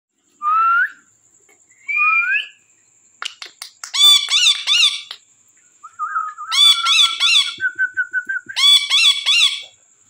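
Indian ringneck parakeets calling: two short rising whistles, then a run of clicks about three seconds in, then three bursts of quick repeated calls that each rise and fall, with a held warbling whistle between the second and third burst.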